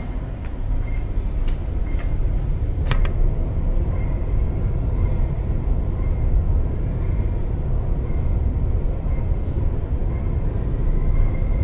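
An MTR Tuen Ma line train moving alongside an underground platform: a steady low rumble with a faint high whine that comes and goes and grows near the end. A few sharp clicks come in the first three seconds, the strongest about three seconds in.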